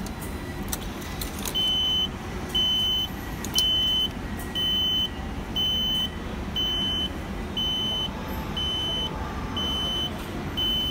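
Railway fare adjustment machine beeping: a single high tone about half a second long, repeating about once a second, ten times. It is the prompt to take the returned IC card from the slot. A few clicks come before the beeping starts.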